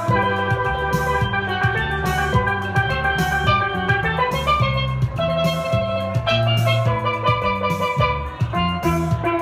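Steel pan playing a bright melody, struck with mallets, over a five-string electric bass playing a bass line beneath it, with a steady beat.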